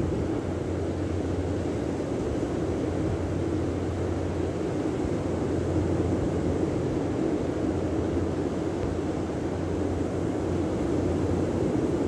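Steady wind rumble on the microphone with surf from breaking waves, an even noise with no distinct events.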